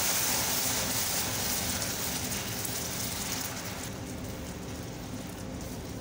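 Milk hissing and bubbling as it hits hot melted sugar and butter in a steel pan for caramel sauce. The sizzle fades gradually as the mixture settles.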